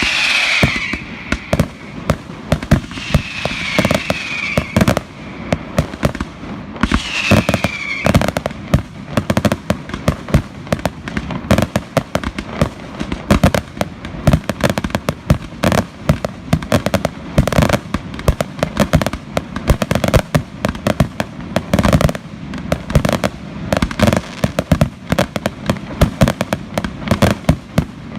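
Fireworks display: a dense, continuous barrage of sharp bangs and crackling, many a second. In the first eight seconds or so, whistles falling in pitch sound three times over the bangs.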